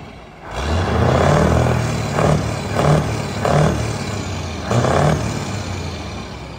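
Scania truck's diesel engine revving through a single straight upright exhaust stack: it revs up sharply about half a second in and climbs, then surges in several shorter revs before easing off near the end.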